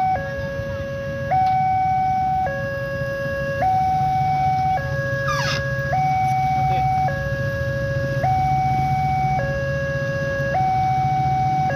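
Railroad level-crossing warning alarm sounding its electronic two-tone signal, alternating between a lower and a higher tone about every second: the crossing is closed and a train is approaching.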